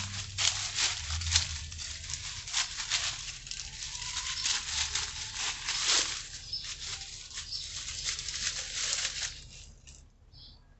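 Close, busy rustling and crackling of leaves and twigs, which stops near the end, leaving a bird's short high chirps.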